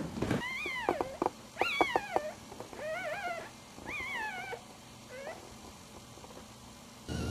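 One-week-old puppies squeaking and whimpering: about five short, high cries that waver in pitch, with a faint last one about five seconds in.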